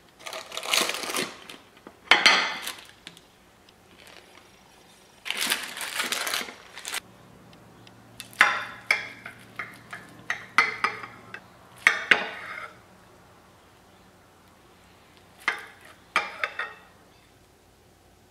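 Ceramic plates and a metal baking pan clattering in several bouts as a baked casserole is turned out. Then comes a run of short, sharp clicks and scrapes as a knife cuts through the bake against the ceramic plate, and two more clinks near the end.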